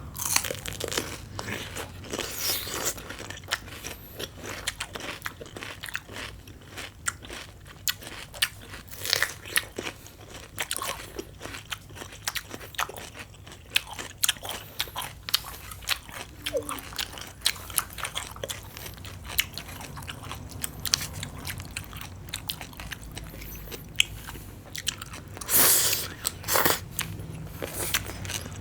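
Close-miked crunching and chewing of green papaya salad with cucumber: repeated crisp bites with wet, crackly chewing in between, the loudest crunches near the end.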